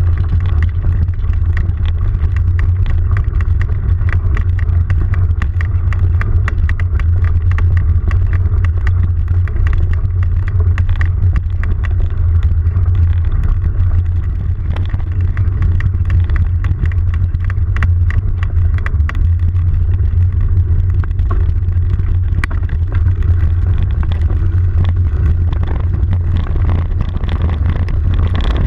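Steady low wind rumble on the microphone while riding fast over a rough dirt trail, with frequent clicks and rattles from the ride over the ground.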